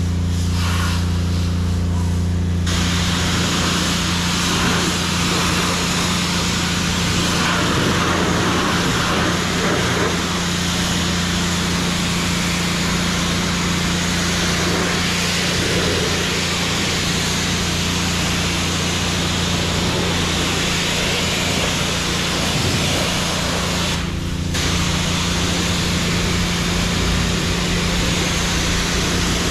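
High-pressure water spray from a self-service car wash wand, hissing steadily against a car's body as the foam is rinsed off, over a steady low hum. The spray starts about three seconds in and breaks off briefly near the end.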